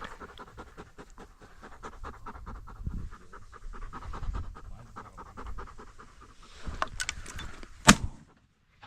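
A dog panting rapidly and hard close to the microphone, then one loud sharp bang near the end.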